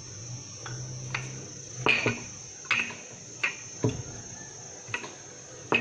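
Light, irregular knocks and taps, about ten in all, as dough is pressed flat by hand and worked with a wooden rolling pin on a silicone baking mat. A steady high-pitched whine runs underneath.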